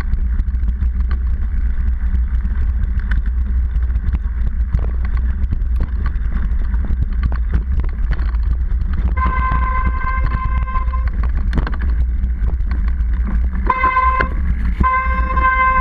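Low rumble and rattling knocks from a seatpost-mounted camera on a mountain bike riding a rough dirt trail. From about nine seconds in, a steady high-pitched tone sounds in three stretches, the last running on past the end.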